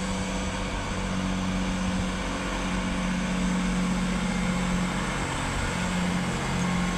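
Class 158 diesel multiple unit's underfloor diesel engines running steadily at idle, a continuous drone with a steady low hum.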